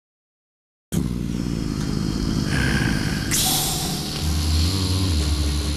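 A vehicle engine running with a low, rough rumble, starting suddenly about a second in, with a brief rushing hiss about three seconds in.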